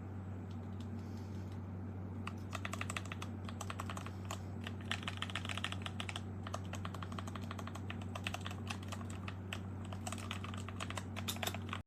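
Typing on a mechanical keyboard with Gateron Milky Yellow Pro linear switches, a sound test of the switches. The keystrokes start about two seconds in and come in quick bursts over a steady low hum.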